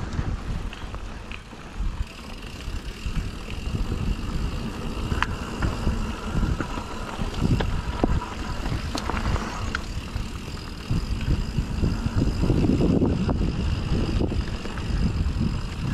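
Mountain bike riding a dirt trail: a low rumble of tyres and wind on the helmet camera's microphone, with frequent clicks and knocks from the bike over rough ground, louder about twelve seconds in.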